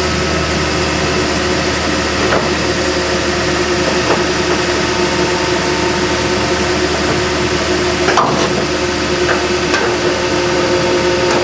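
Caterpillar 322B excavator's diesel engine running steadily, with a few sharp metallic knocks, the loudest about eight seconds in.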